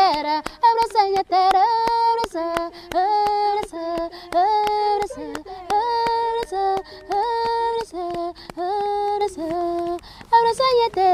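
A woman singing a Cape Verdean batuku song, holding long notes over sharp hand claps that keep a quick, steady beat.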